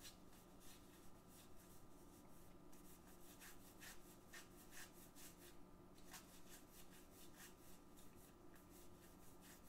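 Near silence with faint, irregular soft clicks of cardboard trading cards being flipped one by one through the hands, about one or two a second.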